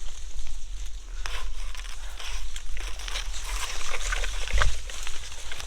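Irregular rustling and crunching in leaf litter and brush, over a low rumble of wind on the microphone.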